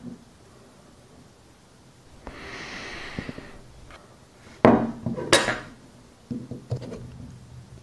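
A bar of soap handled on a wooden table beside a plate and knife: a rustle lasting about a second, then two sharp knocks about half a second apart, the loudest sounds, and a few lighter knocks after.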